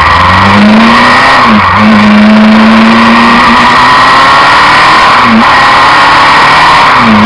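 Suzuki Inazuma 750's inline-four engine, its carburettors freshly adjusted, pulling on the move: the note rises at first and dips briefly as gears are shifted, about a second and a half in, again around five seconds and near the end. A loud rush of wind and road noise runs underneath.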